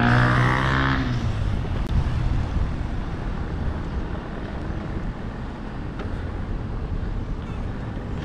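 Steady wind and road rumble from a road bike being ridden, heard from a handlebar-mounted camera. A motor vehicle's engine hum sits over it for about the first second, then fades out.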